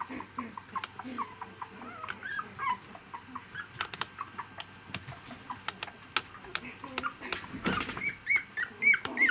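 Three-week-old poodle puppy whimpering in short, repeated high-pitched cries, which grow louder into squeals near the end, with scattered light clicks in between.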